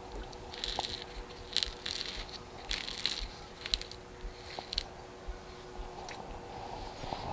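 Water pouring from a plastic watering can onto the soil of a potted batch of olive cuttings, splashing and soaking in in uneven spurts about once a second.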